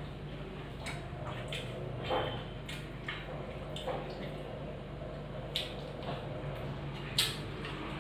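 Eating by hand: fingers squishing through wet curd rice (dahi pakhal) on plates, with scattered short sharp clicks and smacks. A steady low hum runs underneath.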